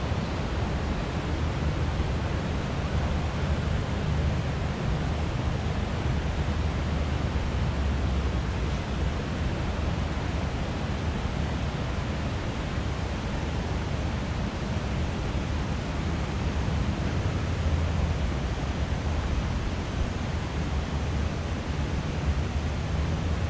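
Steady roar of rushing whitewater, deepest in the low range, with no breaks or single events.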